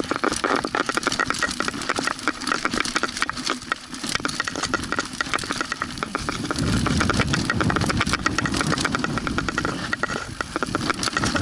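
Mountain bike rattling down a rough dirt trail, with a dense run of rapid clicks. A low rumble swells about six and a half seconds in.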